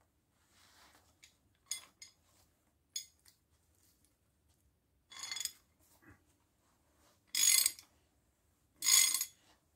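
Steel combination wrench and the nut and threaded rod of a bearing press tool clinking and scraping as it is tightened to pull a new wheel bearing into its knuckle: a few light clicks, then three short metallic rasps, the last two the loudest.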